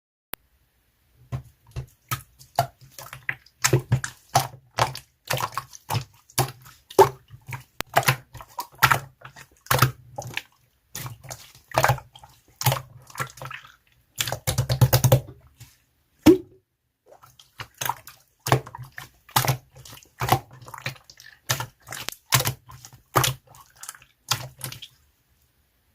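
Clear slime being squeezed and pressed, giving a steady run of wet clicks and pops, several a second, with a longer burst of squelching about halfway through.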